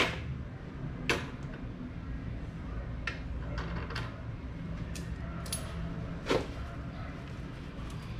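Scattered metallic clinks and knocks of tools and exhaust parts being handled as the stock exhaust comes off, about eight in all, the sharpest at the very start and about six seconds in. A steady low hum runs underneath.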